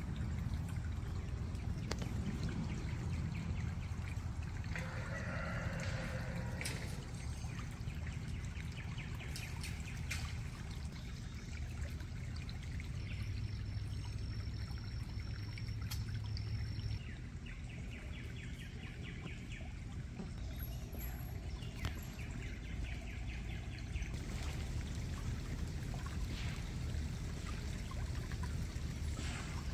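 Water in a small creek trickling steadily.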